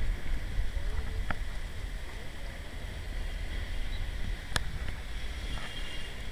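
Low, fluctuating rumble of wind and handling noise on the microphone of a camera carried by a runner, with two sharp clicks, one a little over a second in and one about two-thirds of the way through.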